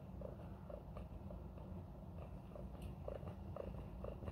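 Domestic cat purring close up: a low, steady rumble with a soft pulse two or three times a second.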